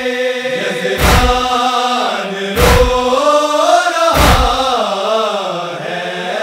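Male group reciting a noha, a Shia lament, in unison with long held, slowly gliding notes and no instruments. Deep matam (chest-beating) thumps fall about every one and a half seconds, three times.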